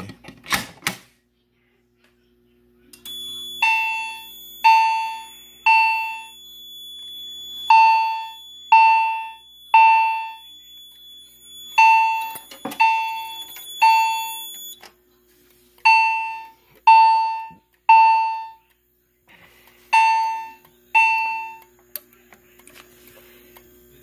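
The pull station's handle is yanked with a sharp click. A few seconds later a Wheelock CH90 fire alarm chime starts striking in the temporal-3 evacuation pattern: three decaying dings about a second apart, each group repeating roughly every four seconds. It stops after the second ding of the fifth group, as the panel's audible silence is used.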